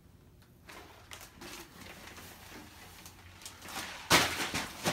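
A cardboard shipping box and its wrapped package being handled. There are a few faint rustles, then a loud rustling scrape of the packaging about four seconds in.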